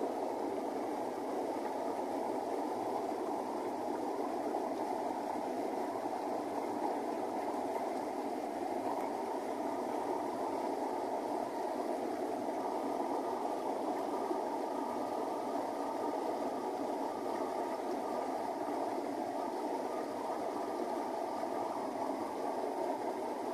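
Muddy rainwater runoff pouring from a small gully into a flooded ditch, a steady rushing and churning of water.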